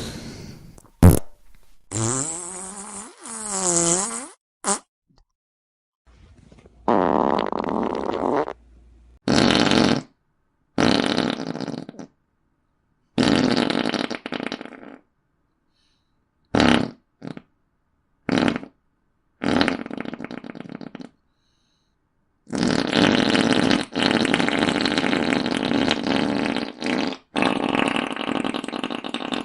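A run of about a dozen fart sound effects, one after another with short silences between, ranging from brief pops to long rasping ones. One about two seconds in wavers up and down in pitch, and the last ones run on for several seconds.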